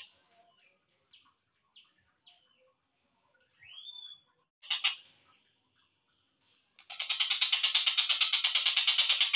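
Tengkek buto kingfisher calls slowed down for bird tutoring: a few short scattered notes and one rising note, then, from about seven seconds in, a loud fast rattle of evenly repeated notes at about eight a second.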